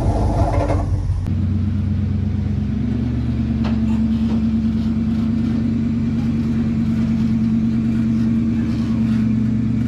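Ford Bronco's engine running steadily at a constant pitch while it tows a car trailer loaded with another Bronco. A different engine sound runs for the first second or so.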